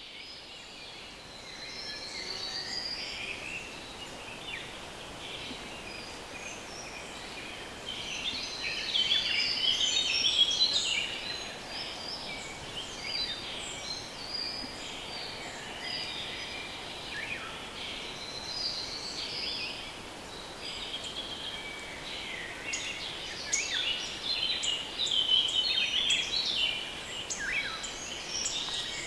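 Woodland songbirds singing and calling together, a dense chorus of chirps and short phrases, busiest about a third of the way in and again near the end.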